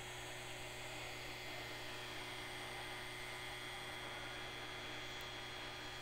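A steady low hum with faint, even high-pitched tones over it; no distinct events.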